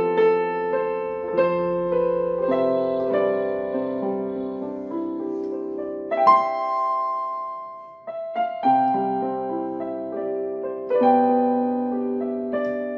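Yamaha PSR portable keyboard played by hand on a piano voice: held chords under a slow melody, with a short break about eight seconds in before the playing picks up again.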